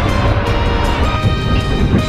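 Background music, with held notes over a strong bass.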